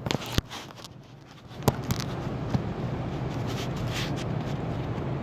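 Handling noise from a camera being moved: a few sharp knocks and rubs in the first half-second and another knock under two seconds in, over a steady low hum.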